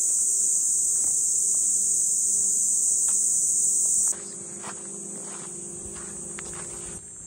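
A steady, high-pitched chorus of insects shrilling in wooded scrub. About four seconds in it drops suddenly to a fainter chorus, with a few soft taps.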